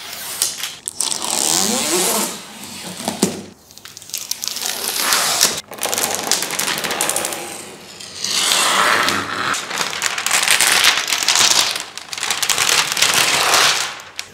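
A TV's cardboard box and its packing being handled and pulled apart: scraping, crinkling and crackling in several long noisy stretches, with a few short squeaks about one to three seconds in.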